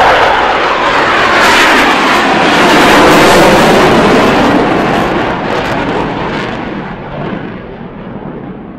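Two F/A-18 Hornet fighter jets with GE F404 turbofan engines running at takeoff power, a loud, rough jet noise that fades from about five seconds in as the jets climb away.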